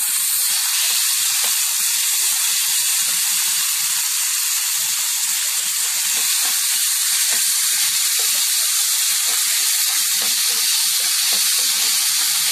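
Chopped onions sizzling steadily in hot oil in a steel pan, with whole spices, as a metal spatula stirs them.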